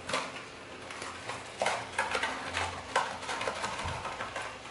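Dried parsley shaken from a small cardboard spice box over a pan, giving a run of light, irregular taps and rattles about twice a second.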